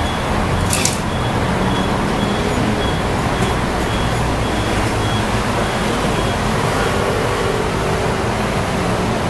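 Steady street traffic noise, with a vehicle's reversing beeper beeping about twice a second through the first half, and a single sharp click about a second in.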